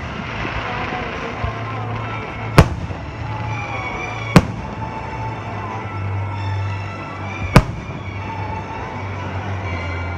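Fireworks shells bursting: three sharp, loud bangs a couple of seconds apart, over music playing.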